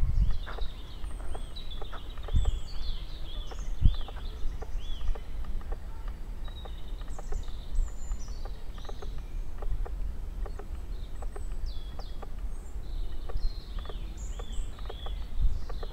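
Several woodland birds singing in spring, including a run of quick, repeated arching notes near the start and again near the end, over scattered clicks of footsteps on a sandy forest path and a steady low rumble.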